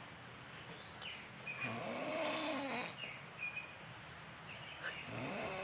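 A person snoring: one long snore about a second and a half in, with the next one starting near the end.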